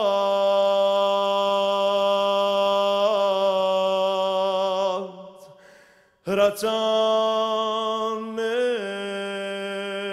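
A man's voice singing an Armenian song unaccompanied, holding one long note that fades out about five seconds in. After a short pause and a brief loud noise, he takes up another long held note.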